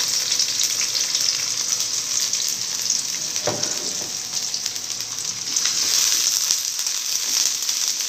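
Sliced shallots and garlic sizzling steadily in hot oil in a wok as they begin to sauté, with a single knock about three and a half seconds in.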